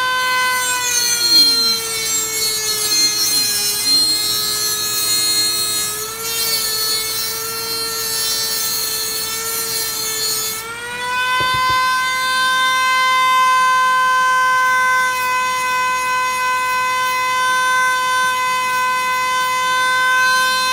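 Dremel rotary tool running at a steady high whine while grinding into a diecast metal truck cab. For the first half the whine sags in pitch under load with a hiss of metal grinding, then climbs back and holds steady once the bit eases off. It begins to wind down right at the end as the tool is switched off.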